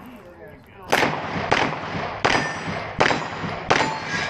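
Five pistol shots, about one every 0.7 seconds, starting about a second in, fired on the timer at steel plates. Some shots are followed by a brief ring from struck steel.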